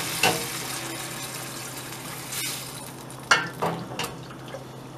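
A hot skillet of toasted rice and tomato sauce sizzling as chicken broth is poured in, the hiss dying down as the liquid goes in. A few sharp knocks and splashes come from a measuring cup scooping broth from a stockpot, one near the start and a quick cluster about three to four seconds in.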